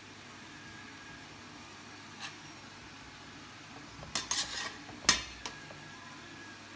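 Metal kitchen spoon or skimmer scooping cooked rice out of a pot onto a metal serving tray. There is a light tap about two seconds in, a short run of clinks and scrapes, then one sharp metal knock about five seconds in.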